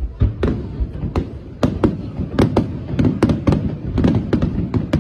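Aerial firework shells bursting in a rapid volley, a run of sharp bangs about four a second over a low rumble.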